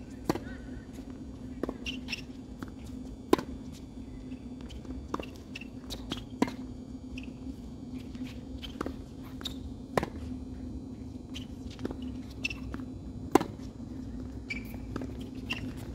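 Tennis rally on a hard court: a serve and then a string of sharp pops from rackets striking the ball and the ball bouncing, every one to two seconds, the two loudest about three seconds in and near the end, over a steady low hum.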